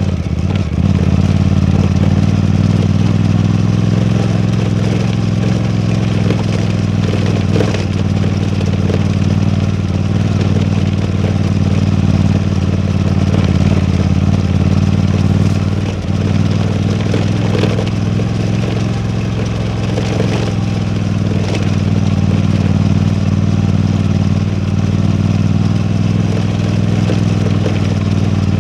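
Suzuki V-Strom 800DE's parallel-twin engine running at a steady, even pace while the motorcycle is ridden, with a few sharp clicks now and then.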